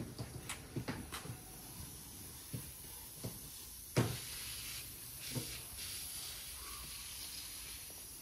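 A few light clicks and knocks, then a sharp knock about four seconds in, followed by the steady hiss of water spraying from a garden hose's pistol-grip spray nozzle.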